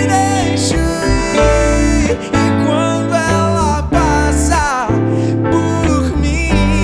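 Pop-rock band playing live: drums, bass and guitar, with a voice singing a melody with sliding pitch bends over them.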